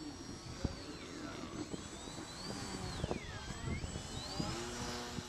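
Several micro quadcopters' tiny motors whining as they hover, their pitch sweeping up and down as the throttle constantly corrects against strong wind. Low rumble and a few short thumps sit underneath.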